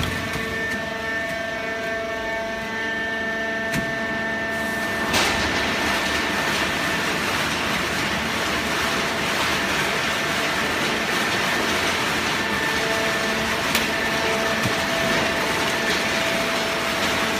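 Industrial hydraulic baling press for shredded paper running with a steady mechanical noise and a few steady whining tones. The noise becomes louder and rougher about five seconds in.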